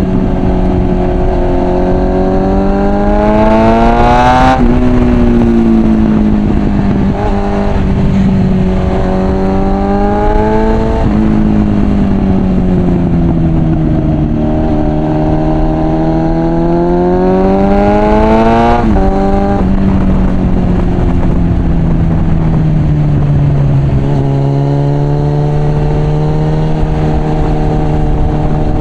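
Suzuki Bandit 650 inline-four with an aftermarket Mivv exhaust, under way: the engine note climbs under throttle and drops sharply at gear changes about four times. For the last few seconds it holds a steady, lower note.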